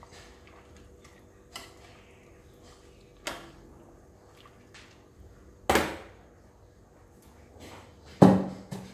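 A metal spoon knocking and scraping against an aluminium pot while stirring sliced young watermelon in water: a few separate clinks, the loudest about two-thirds through, and a louder knock near the end.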